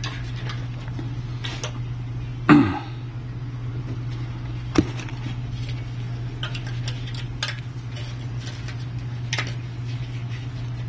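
Handling noise of a bare phone screen and logic board: a few sharp clicks and knocks of fingers and cloth on the glass, the loudest about two and a half seconds in and another near five seconds, over a steady low hum.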